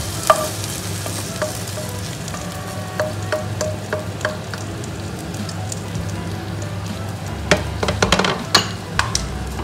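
A metal spoon scraping and knocking against a non-stick frying pan as cooked pork is scooped out into a bowl, over a steady sizzle from the hot pan. The clatter thickens into a quick run of knocks near the end.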